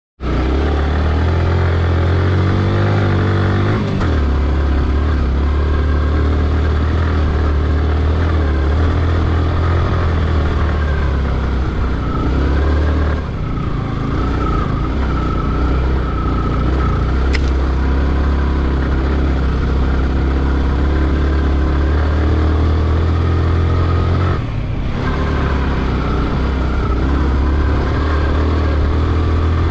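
Yamaha R15's single-cylinder engine running under load on a ride over loose sand, its note rising over the first few seconds. The engine note drops briefly three times, about four, thirteen and twenty-four seconds in.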